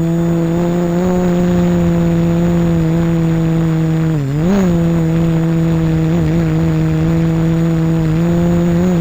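GAUI 330X electric quadcopter's motors and propellers whining in flight at a steady pitch, dipping and rising again briefly about four seconds in as the throttle changes.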